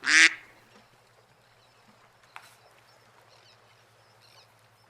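A duck quacking once, a short loud quack right at the start, followed by only a faint low hum and a soft tick about two and a half seconds in.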